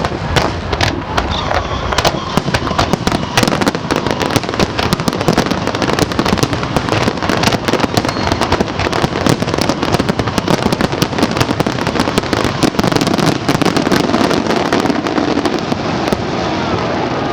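Fireworks display going off in a dense, rapid barrage of crackling bangs over a continuous rumble, thinning out near the end.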